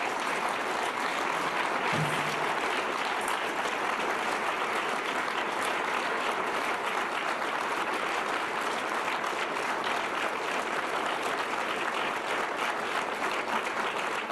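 A large audience applauding, a steady, dense clapping.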